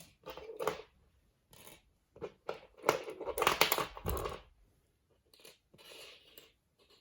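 Fidget toys being handled and sorted by hand: irregular rustling, scraping and clicking, loudest about three to four seconds in.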